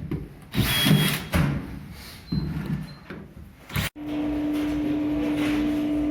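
Irregular scraping, sliding and knocking of building materials being handled and set down on a floor. About four seconds in it cuts off abruptly and a steady machine hum with one strong low tone takes over.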